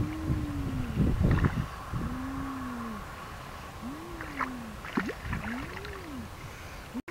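Hands splashing in shallow muddy water during the first second or so, while a low hooting call, each rising and then falling over about a second, repeats four times about every second and a half.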